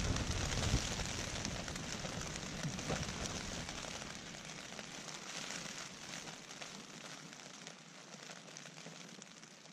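Rain pattering on a tent, with many fine crackling drop ticks over a steady hiss, and a low wind rumble that dies away about four seconds in; the whole sound grows steadily fainter.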